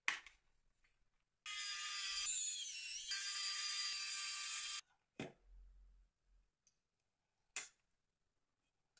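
A small electric screwdriver motor whining for about three seconds, starting and stopping abruptly, its pitch dipping and recovering partway through. Short clicks of small plastic phone parts being handled come before and after.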